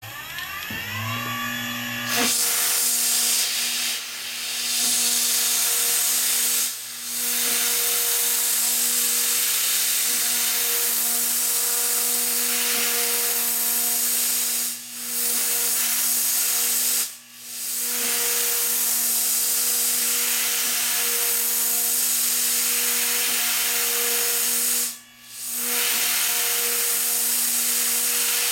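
Gear chamfering machine's high-speed spindle spinning up with a rising whine, then running steadily with a strong hiss as its small cutter chamfers the tooth edges of a helical gear. The sound dips out briefly four times.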